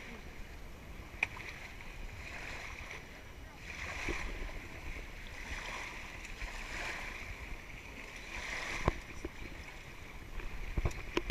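Wind rumbling on the microphone and water splashing around feet wading in the shallows, in swells that come and go, with faint voices in the background and a few sharp knocks.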